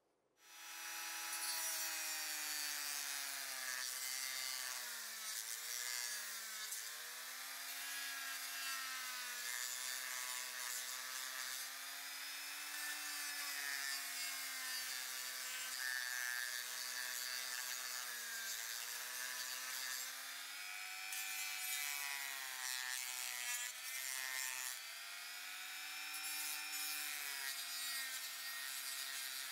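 Handheld rotary tool with a sanding drum grinding the die-cast metal body of a Hot Wheels car. It gives a steady high motor whine over a grinding hiss, and the pitch dips briefly several times as the drum is pressed harder into the metal.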